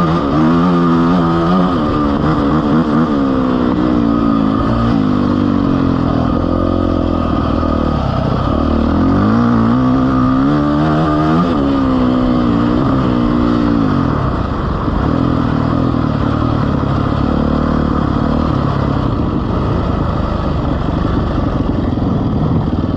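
A vehicle engine running under load, revving up and down repeatedly over the first dozen seconds, then holding a steadier speed.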